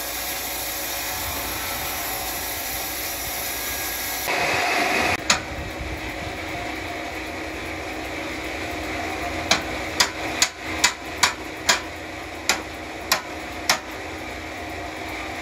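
A steady machinery drone, with one sharp knock about five seconds in and then a quick run of about eight sharp knocks, roughly two a second, in the second half.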